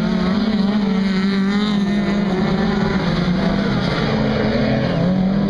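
Several racing cars' engines revving hard through a dirt-track corner, overlapping, their pitch rising and falling.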